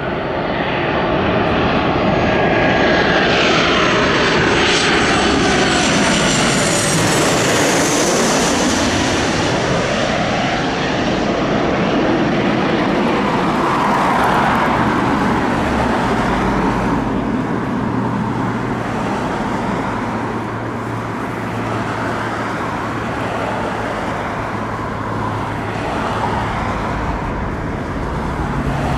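Boeing 737 twin-jet airliner passing low on final approach, its engine whine sliding down in pitch as it goes by. Afterwards a steadier, somewhat quieter engine noise carries on as it lands and rolls along the runway.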